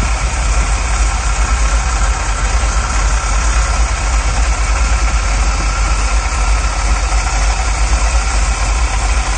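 1985 Chevy Van engine idling steadily while it warms up from a recent start, its coolant system freshly refilled through a new heater core.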